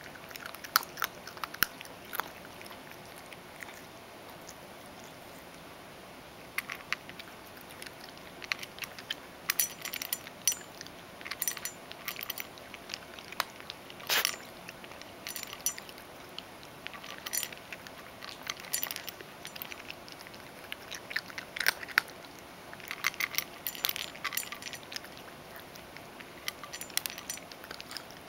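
Ragdoll cat crunching dry kibble from a stainless steel bowl: irregular crisp crunches and clicks, with a few seconds' pause near the start.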